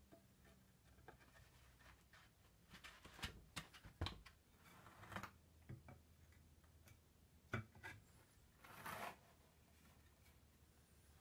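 Faint, scattered light knocks and taps of antique wooden rocking-chair parts being handled and dry-fitted together, several between about three and five seconds in and another near eight seconds, then a brief rub about nine seconds in.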